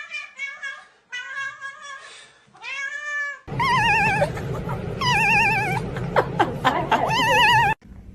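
Domestic cats meowing and yowling in a string of short clips cut together: quick repeated meows at first, then a single arching meow, then from about three and a half seconds in, long drawn-out calls with a wavering, warbling pitch, cut off abruptly near the end.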